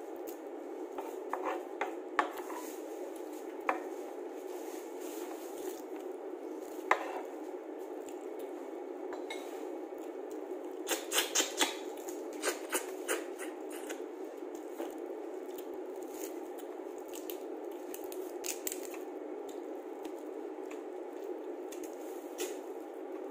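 Cooked crab and shrimp shells being cracked and peeled by hand and eaten: scattered sharp cracks and crackles, with a quick run of them about eleven seconds in, over a steady low hum.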